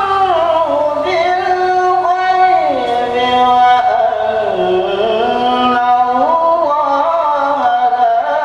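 A young man reciting the Quran in the melodic tilawah style: one long phrase of sustained, ornamented notes that sinks in pitch through the middle and climbs again in the last few seconds.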